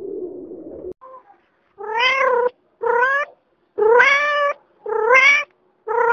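A rock pigeon's low cooing in the first second, then a kitten meowing five times, about once a second, each meow a short cry that rises slightly in pitch.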